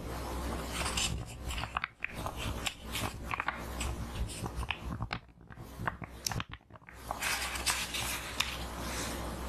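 Paper herbal-medicine envelope handled close to the microphone: crisp rustling and crinkling with many small sharp crackles, easing into a short lull about five seconds in before the crinkling resumes.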